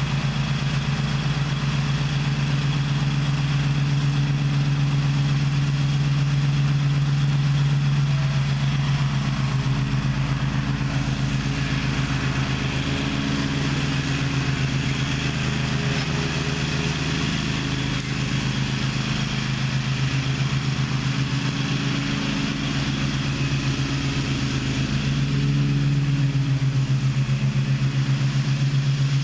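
Gravely ZTX 42 zero-turn mower's engine running steadily, its pitch shifting slightly now and then.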